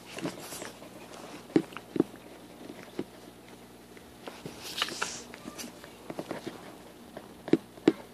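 Small dogs play-fighting on a bed, nibbling and mouthing at each other. A few short sharp clicks and a brief rustle of fur and bedding about five seconds in.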